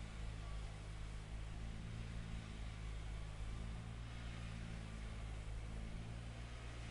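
Faint steady low hum with an even hiss over it, unchanging throughout.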